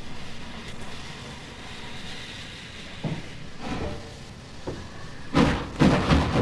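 A steady low rumble with hiss, then a few knocks about three seconds in, and a run of loud, heavy thuds near the end.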